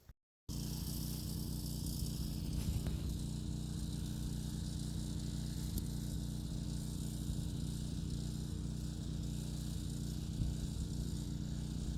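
A steady low motor hum with a faint hiss above it, starting just after a brief silent cut.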